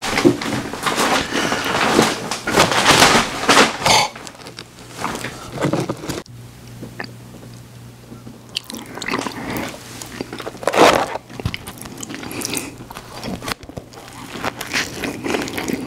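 Close-miked eating: crunchy bites and chewing of McDonald's fast food, in bursts, with a quieter pause in the middle.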